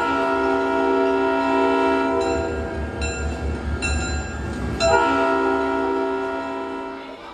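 Train horn sound effect: two long chords of several steady tones, the second starting about five seconds in, over a low rumble.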